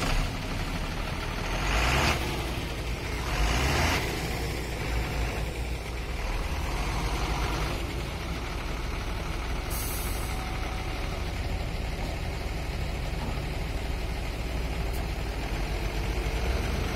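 Hyundai tracked excavator's diesel engine running steadily as it digs. There are two louder rushing surges about two and four seconds in, and a brief high hiss about ten seconds in.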